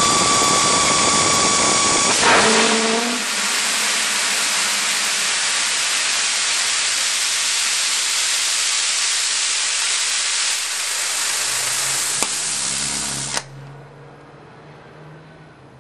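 Hybrid rocket motor (gaseous oxygen burning a Plexiglas fuel grain through an aerospike nozzle) firing: a loud, steady rushing hiss, with a steady high tone through the first two seconds. About thirteen seconds in the firing cuts off abruptly, leaving a faint low hum.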